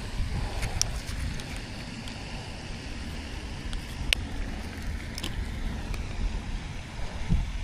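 Wind rumbling on the microphone, with a few sharp clicks, three of them standing out about a second in, around four seconds in and about five seconds in.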